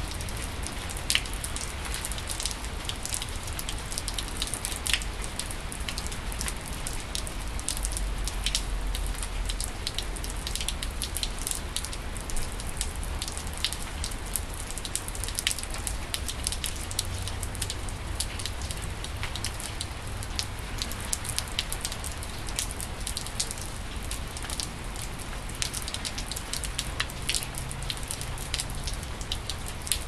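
Steady rain falling on wet pavement and puddles: an even hiss with many separate drops ticking close by, over a low rumble.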